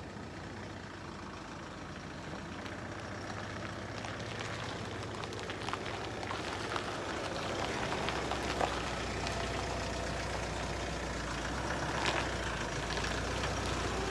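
A dual-cab pickup's engine running as the vehicle manoeuvres and drives slowly past close by, growing steadily louder. The engine note deepens about eight seconds in as it comes nearest.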